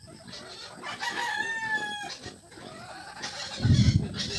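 A rooster crowing once: one held call of about a second, falling slightly in pitch. Near the end, a loud low thudding noise.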